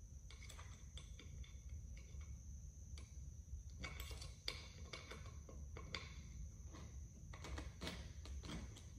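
Scattered light clicks and taps of metal hardware being handled and tightened while a dining chair is assembled, coming more often in the second half.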